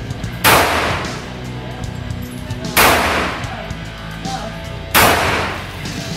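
Three shots from a Ruger P90 .45 ACP pistol, about two seconds apart, each ringing out in the echo of an indoor shooting range, over background music.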